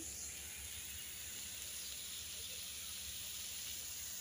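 Sliced ridge gourd and lentils frying in oil in an open karai, with a faint, steady sizzle.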